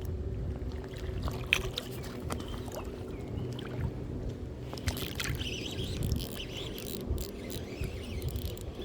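Water sloshing and lapping, with a low rumble and a few scattered small clicks and taps.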